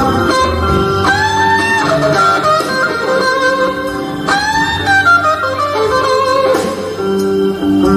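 Live electric blues band playing a slow blues: a lead electric guitar solos with bent notes over a band accompaniment with bass.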